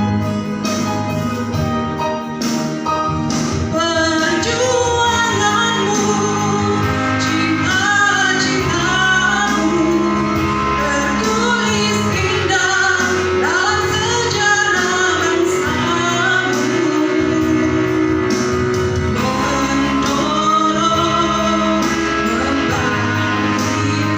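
A song: a singing voice over instrumental accompaniment, at an even loudness.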